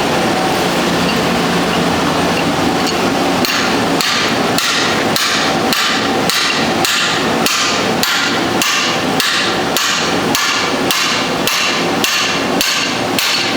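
Steady hammering: evenly spaced hammer blows, about two a second, starting a few seconds in over a steady background noise.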